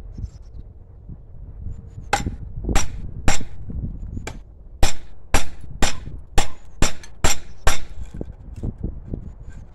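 Hand hammer striking a red-hot file held in tongs, about eleven sharp metal-on-metal blows: three spaced ones first, then a quicker run of about two a second that stops about 8 seconds in.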